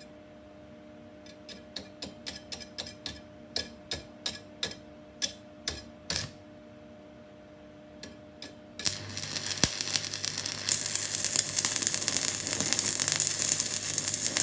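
Stick (arc) welding rod burning on a cast manifold: a steady crackling sizzle with a low hum starts about nine seconds in and grows louder a couple of seconds later, the rod held still in the puddle. Before it, a string of sharp ticks.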